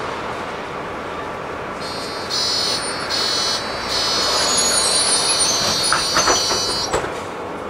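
Steady running noise inside a city bus, with a high-pitched squeal that starts and stops twice about two seconds in, then holds for about three seconds and cuts off with a few knocks.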